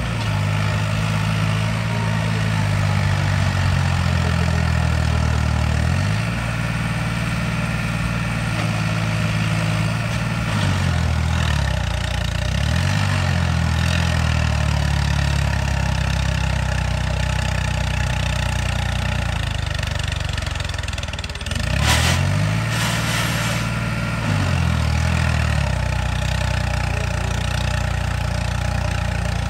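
Diesel tractor engine running hard, its pitch dipping and climbing back several times as it works under load. About two-thirds of the way in there is a short, loud, noisy burst.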